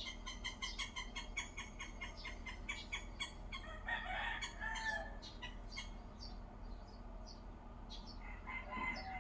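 Birds chirping in a rapid series of short calls that thin out over the seconds, with a longer call about four seconds in.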